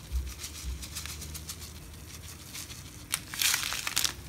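Sesame seeds being shaken into the soup pot: a light patter of small clicks and rustling, with a louder rustle about three seconds in.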